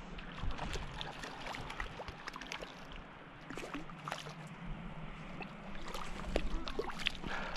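A hooked rainbow trout splashing and thrashing in shallow lake water as it is played in on a tenkara rod: an irregular run of small sharp splashes and drips, a little busier near the end.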